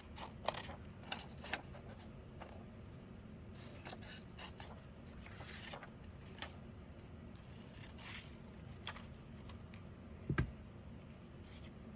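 Scissors cutting card stock in a series of short, irregular snips. About ten seconds in there is a louder double thump on the tabletop.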